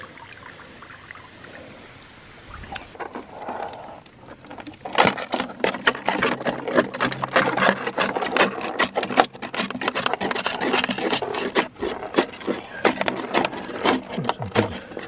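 Live freshwater crayfish (koura) scrabbling in a plastic container: a dense, irregular run of sharp clicks and scratches from their legs and claws on the plastic, starting about five seconds in. Before that there are only soft, faint sounds.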